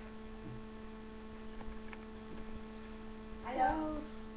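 Steady electrical hum made of two constant tones, with a few faint clicks. A child's voice says 'hello' near the end.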